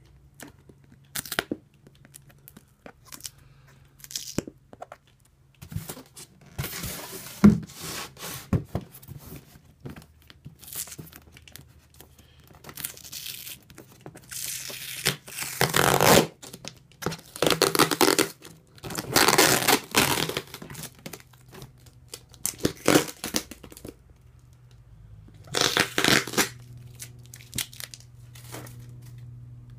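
Packing tape being peeled off a plastic container in several long rasping rips, with clicks and knocks of handling between them.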